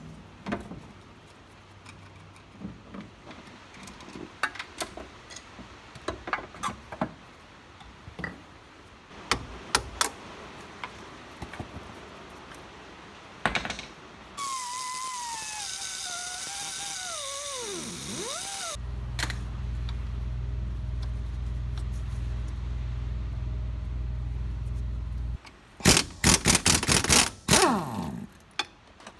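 Scattered clicks and knocks of hand tools on a car's suspension bolts, then a loud hiss with a falling whine and a steady low hum. An impact wrench hammers in several short bursts on the strut's lower mounting bolts near the end.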